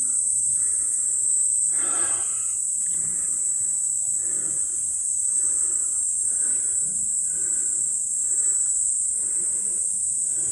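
A loud, steady, high-pitched insect chorus from the trees, typical of cicadas. Underneath it, a softer sound repeats about every three quarters of a second.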